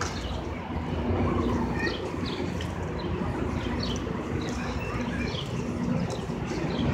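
Street ambience: a steady low rumble of idling vehicle engines, with birds chirping again and again over it.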